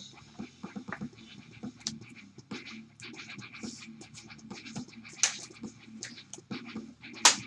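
Trading cards and a clear plastic card holder being handled and shuffled by gloved hands: a quick run of scratchy rustles and clicks of card stock sliding against card and plastic, with two louder snaps, about five seconds in and just before the end.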